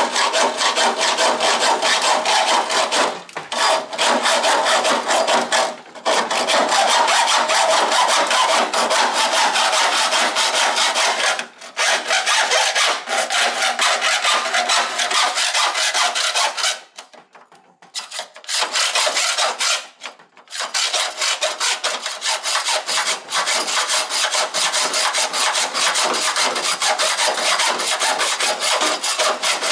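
Hacksaw cutting through the sheet steel of an HK–HG Holden front mudguard: continuous back-and-forth rasping strokes. It stops briefly a few times, with a longer pause a little past halfway.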